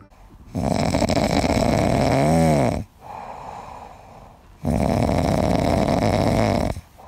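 A sleeping Pomeranian puppy snoring: two long rasping snores of about two seconds each, with quieter breaths between them and a brief whistle in the middle of the first.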